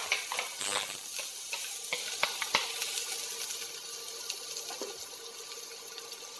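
Chopped onions sizzling in hot oil in a stainless-steel saucepan, crackling with sharp pops for the first two or three seconds, then settling into a steady hiss that slowly dies down.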